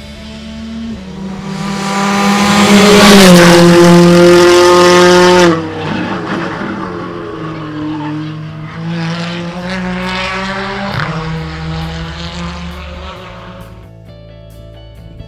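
Hyundai i20 R5 rally car's 1.6-litre turbocharged four-cylinder engine at high revs as the car comes up and passes at speed. Its note climbs to a loud peak and then drops off abruptly. A quieter engine note follows, rising and dipping in pitch as it fades into the distance, with background music underneath.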